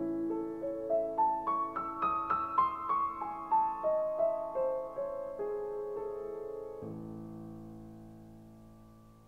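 Solo piano music: a run of single notes climbs and then falls over a held chord, then settles on a sustained chord that slowly fades.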